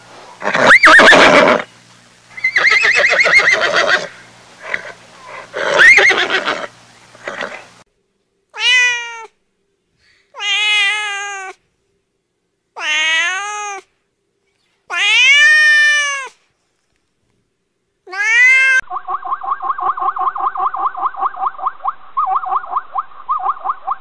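A horse whinnying three times, then a cat giving five drawn-out meows, each rising and then falling in pitch. About nineteen seconds in, a long run of rapid, evenly pulsed animal calls begins.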